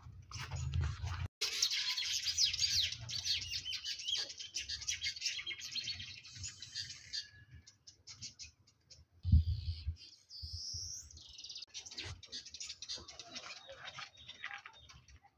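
Many small birds chirping at once in a dense, high chatter, which thins out about seven seconds in and picks up again near the end. About nine seconds in there is a single dull thump, the loudest sound, followed by a short rising whistle.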